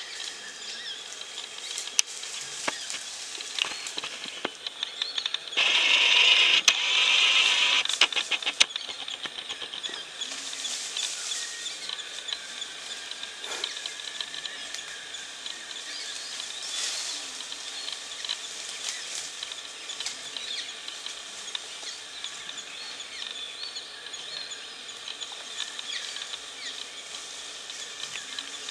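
Forest ambience: a steady chorus of insects with scattered bird calls and clicks. About six seconds in comes a louder dense hiss lasting a couple of seconds.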